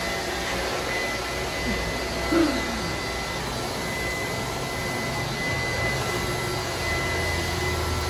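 Mondial Turbo Cycle 1100-watt corded stick vacuum cleaner running steadily with a high whine over its motor noise, vacuuming a tiled floor.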